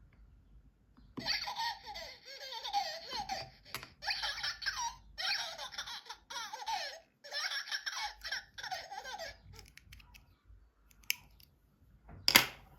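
High-pitched, baby-like giggling in several bursts, then a click and a sharp knock near the end.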